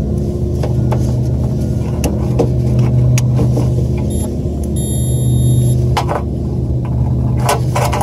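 Steady low machinery hum with scattered handling clicks, and a high electronic beep lasting about a second about five seconds in: a digital multimeter's continuity beep.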